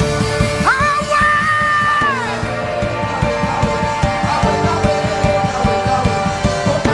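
Worship band music: a busy, steady drum and bass beat under sustained keyboard chords. About a second in, a high voice cries out once, rising quickly, holding the note for over a second, then sliding down.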